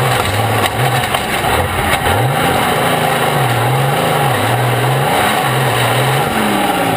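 Turbocharged diesel engine of an International Harvester superstock pulling tractor, heard close from its hood, being revved up and down several times, its pitch rising and falling with each blip of the throttle.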